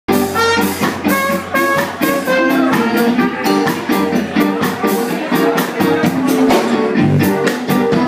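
Live ska band playing, with a brass-led horn section of trumpet, trombone and saxophone playing held notes and short phrases over drums that keep a quick, steady beat.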